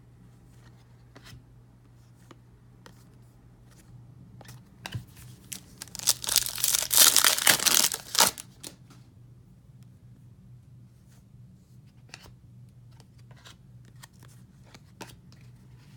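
Foil trading-card pack torn open with a loud crinkling rip lasting about two seconds, midway through. Light clicks and rustles of cards being handled come before and after, over a steady low hum.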